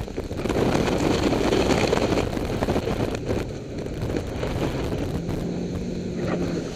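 Rigid inflatable boat running fast through rough storm seas: a dense rush of wind on the microphone and water against the hull, over the Mercury Verado outboard engine, whose steady low note stands out for about a second near the end.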